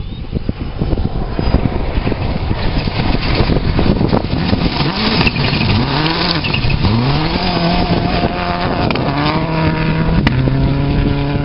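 Rally car driven flat out on a gravel stage. A rush of engine and gravel builds, then the engine revs up again and again, its pitch climbing and dropping at each gear change before holding steady near the end. A sharp crack comes about ten seconds in.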